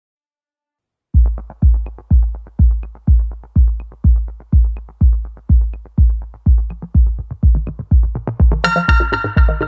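Background electronic music: after about a second of silence, a steady kick-drum beat comes in at about two beats a second, and a synth melody joins near the end.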